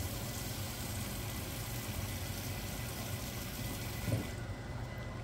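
Water running from a kitchen tap in a steady hiss, shut off abruptly about four seconds in, just after a short knock.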